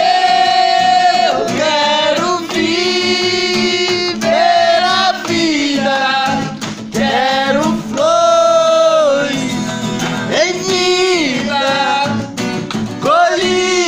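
A man singing a sertanejo love song, holding long sliding notes, while strumming an acoustic guitar.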